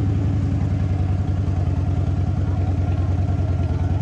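A 2009 Harley-Davidson Road King's V-twin engine running at idle with a steady pulsing beat as the bike rolls slowly forward.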